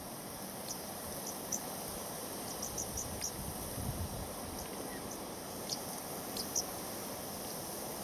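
Savanna ambience: a steady background hiss with scattered short, high-pitched chirps from small animals in the bush. A few soft low rumbles come through, near the middle and later on.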